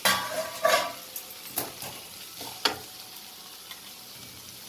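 Vegetables frying in oil in a kadhai, with a metal spatula striking and scraping against the pan four times in the first three seconds, then a steady, fainter sizzle.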